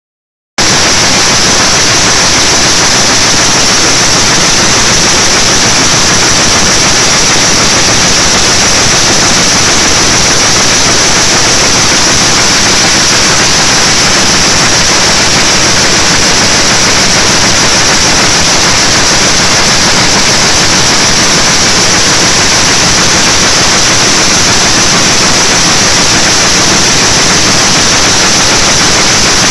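Power loom running at speed: a loud, steady mechanical noise with a hiss high up, starting abruptly about half a second in.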